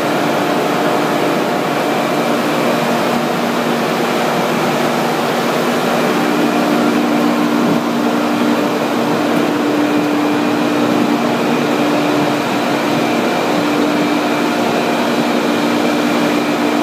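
Waste plastic film washing and recycling line running: a loud, steady machine din of electric motors and rotating equipment, with a constant low hum.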